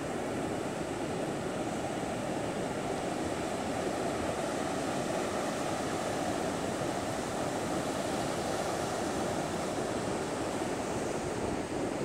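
Heavy storm surf breaking and washing up a sand beach in a steady, continuous rush: a pre-storm surge.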